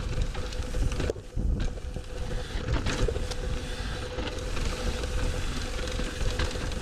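Mountain bike rolling down rocky dirt singletrack: wind rushing over the camera microphone, tyres crunching over gravel, and a few sharp knocks as the bike hits rocks. A faint steady whine sits underneath.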